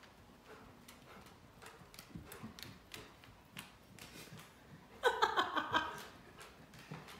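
A Rottweiler's claws clicking on a hardwood floor as it trots about. About five seconds in comes a short burst of a person's laughter, the loudest sound here.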